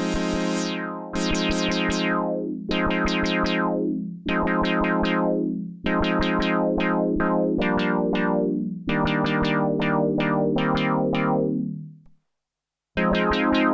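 Behringer Poly D analog polyphonic synthesizer playing a run of chords, a new one about every one and a half seconds, each starting bright and growing duller as it holds. The sound dies away about twelve seconds in, and after a short gap the chords start again.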